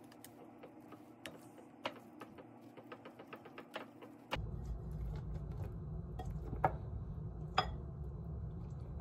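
Silicone whisk beating waffle batter in a ceramic bowl: a quick run of soft taps and clicks against the bowl. About four seconds in, a low steady hum starts suddenly under it, and two sharper clicks stand out near the end.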